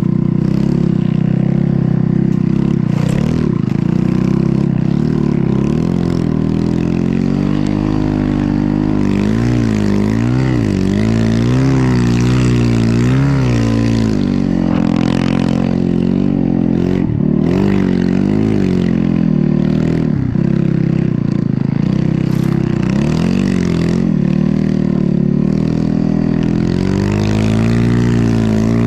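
Snow bike's motorcycle engine running hard as it is ridden, revving up and down over and over, its pitch rising and falling every second or two.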